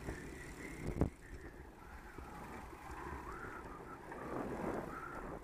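Riding noise of a bicycle on a tarmac path: a steady low rumble with a sharp knock about a second in, and faint wavering whistle-like tones over the second half.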